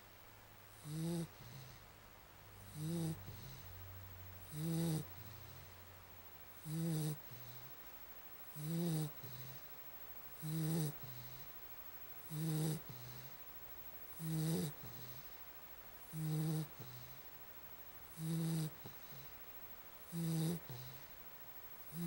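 Golden retriever snoring in its sleep: a short, pitched, rasping snore on each breath, repeating evenly about every two seconds.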